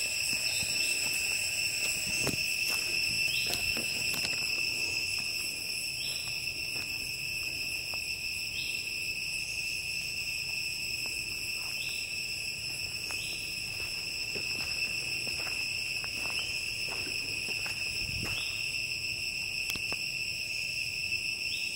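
Forest insects singing: one steady, high-pitched whine held at a single pitch, with faint short chirps now and then.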